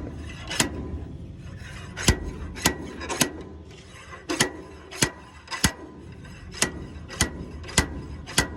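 Slide hammer striking against its stop as it is yanked to pull a seized wheel bearing off a John Deere 24T square baler: about eleven sharp metal knocks, roughly one every half second in short runs with brief pauses. The bearing does not budge.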